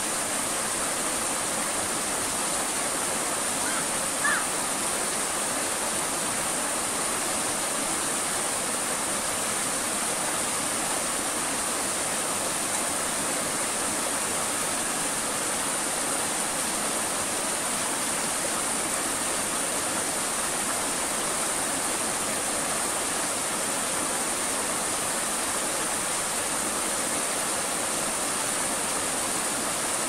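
River water running over rocks: a steady, even rush of flowing water.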